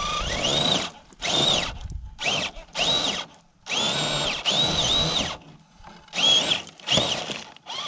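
Electric motor and gears of an RC scale Bronco crawler whining in about seven short throttle bursts, the pitch rising and falling with each burst, as it tows a boat trailer through brush.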